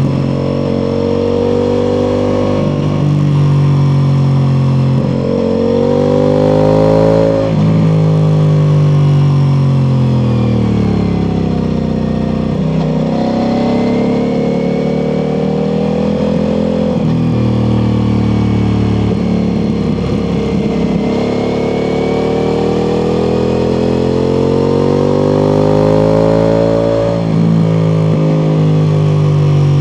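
Ducati Multistrada V4 Pikes Peak's V4 engine through an Akrapovic exhaust, ridden hard: the engine note climbs under acceleration, drops suddenly at quick gear changes, and sinks as the throttle is rolled off, over and over.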